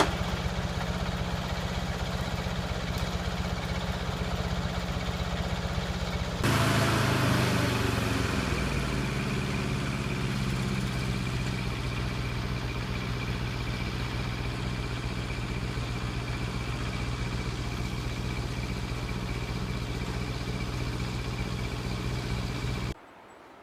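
Engine running steadily; about six seconds in it gets suddenly louder and changes pitch, as if put under load, then eases back to a steady run. Near the end the sound drops away abruptly.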